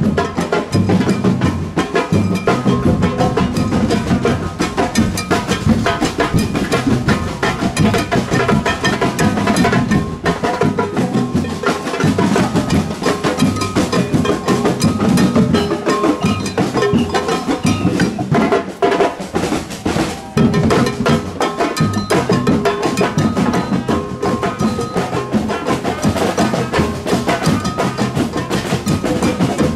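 Snare and bass drums beating a continuous, busy rhythm, with other instruments playing along.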